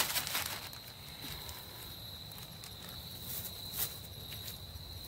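Plastic zip-top bag crinkling as it is pulled open, loudest at the start, with a few short crinkles again a little past the middle as it is handled. A steady high trill runs underneath.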